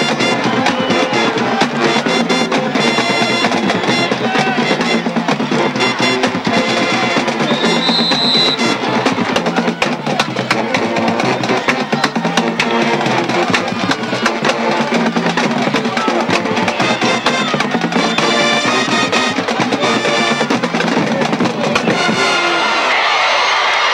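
Marching band playing a drum-and-brass tune, steady drumming under trumpet-like brass; near the end the band stops and crowd noise takes over.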